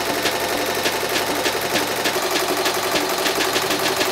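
Ricoma TC-1501 15-needle commercial embroidery machine running, with a steady, even clatter of stitching as the needle head sews lettering onto an apron in a hoop.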